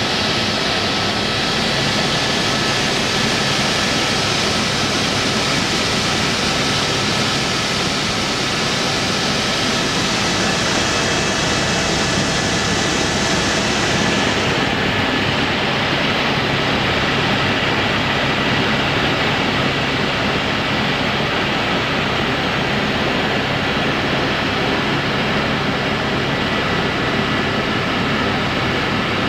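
Helicopter in flight, heard from inside the cabin: a loud, steady rush of rotor and engine noise with a faint steady whine running through it.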